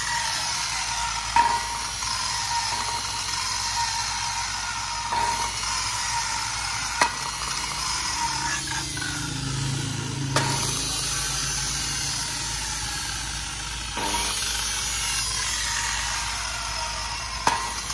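Makita electric circular saw with a 180–190 mm blade, running unloaded. Six sharp clicks come through the running sound, and after several of them the motor's whine falls as it slows. The seller says the motor brushes throw slight sparks.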